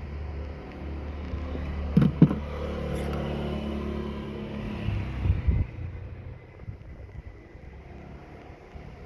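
VW Golf 1.6 FSI four-cylinder petrol engine idling steadily. There are two sharp knocks about two seconds in, then clunks a little past halfway, after which the engine hum stops.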